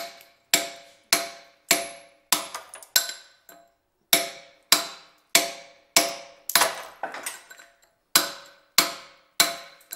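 Hammer striking a chisel into basalt, a steady run of sharp strikes about two a second, each ringing briefly.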